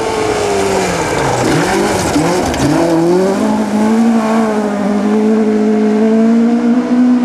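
Rally car engine passing close, its note dropping and wavering as it slows about a second in, then pulling away with a steady, slowly rising engine note.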